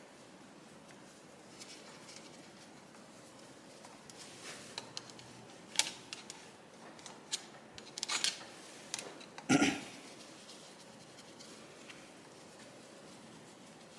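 Scattered light clicks and taps of hand tools on a motorcycle engine as the cam chain tensioner is slackened off, with one sharper knock about two-thirds of the way through.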